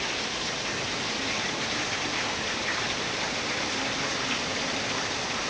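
Heavy rain pouring down steadily, a dense even hiss of downpour.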